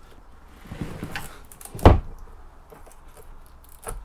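Engine-room deck hatch on a motor yacht being lowered and shut, landing with one loud thump about two seconds in. A lighter knock follows near the end.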